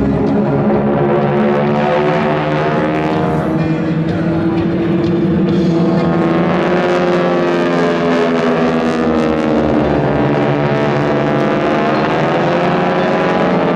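A formation of North American T-6 Texan trainers with Pratt & Whitney R-1340 radial engines droning overhead under power. The engine pitch dips and then rises again as the planes pass and manoeuvre.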